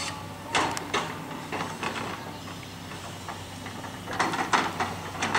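Volvo tracked excavator running steadily while working a tree stump, with sharp clanks and knocks: a couple early on, then a rapid run of them from about four seconds in.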